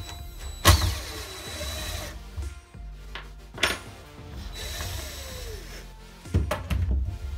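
Cordless drill fitted with a socket running in short bursts, about three times, backing bolts out of a fiberglass boat swim platform, over background music.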